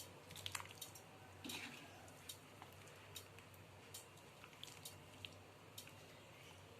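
Faint kitchen handling sounds: sparse light clicks of utensils and a soft wet squish about a second and a half in.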